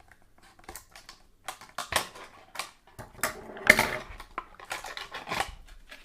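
Irregular clicks and crackles of stiff clear plastic toy packaging being handled and pried at, with a louder burst of crackling a little over halfway through.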